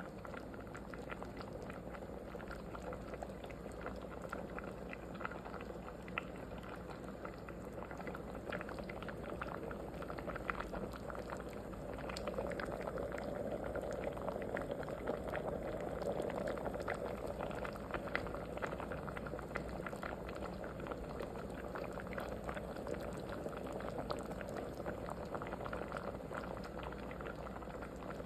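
Liquid bubbling at a steady boil in a cooking pot, with many small bubbles popping; it grows a little fuller about twelve seconds in.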